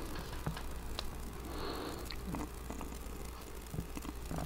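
Faint scattered clicks and soft rustling from hands handling a small FPV monitor on its tabletop tripod, over a low steady hum.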